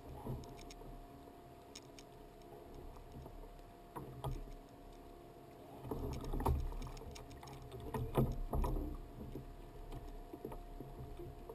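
Irregular knocks and thumps on a plastic fishing kayak, loudest a little past the middle, with a faint steady tone underneath.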